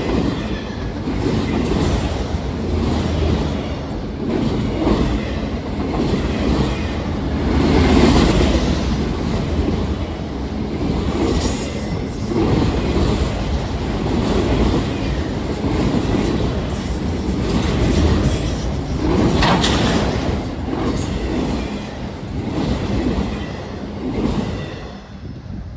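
CSX freight train rolling past, its steel wheels clacking over the rail joints with some wheel squeal. The sound starts to fade near the end as the train moves off.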